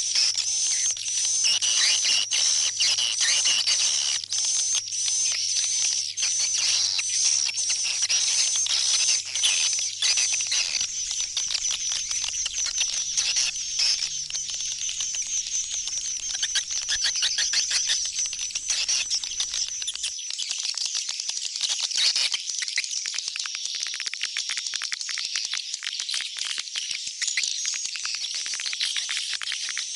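Dense chorus of swiftlets twittering: rapid, high, overlapping chirps without a pause. It is a swiftlet call recording of the kind played at a swiftlet house to lure the birds back home.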